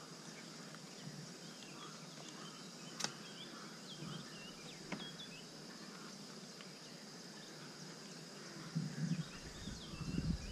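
Faint riverside background of small birds chirping and twittering over a steady high insect-like hum. There are two sharp clicks, about three and five seconds in, and a few low thuds near the end.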